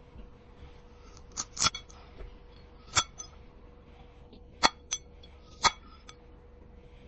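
AI-generated ASMR sound of a knife slicing through a glass strawberry on a wooden cutting board. About six sharp, glassy clinks come at uneven intervals, each with a brief bright ring, over a faint steady hum.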